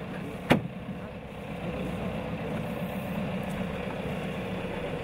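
Boat engine idling with a steady low rumble, and a single sharp knock about half a second in.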